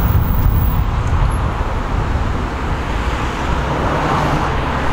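City street traffic: a steady rumble of cars going by, swelling a little about four seconds in.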